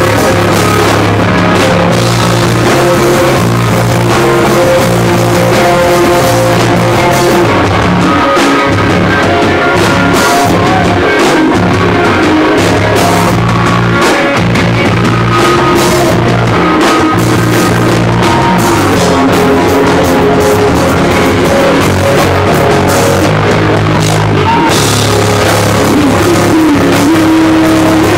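Rock band playing live: electric guitars and drum kit, loud and steady throughout.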